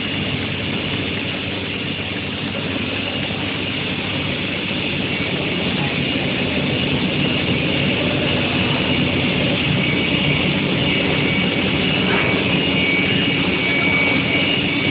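Steady industrial machinery running on a steel bar induction quenching and tempering line: a continuous rumble and hiss with a faint steady high whine that becomes clearer about halfway through.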